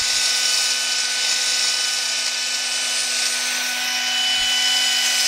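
Old 240-volt Black & Decker electric drill, mounted in a bench drill stand, running steadily under power with a constant motor whine; it has just been switched on and is working.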